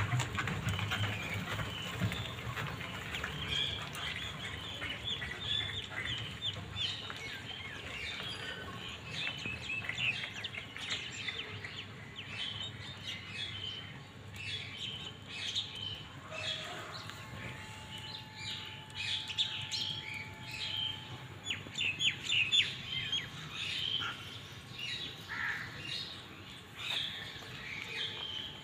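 Small birds chirping over and over in the background, with the close, wet chewing and clicking of a kitten eating raw chicken.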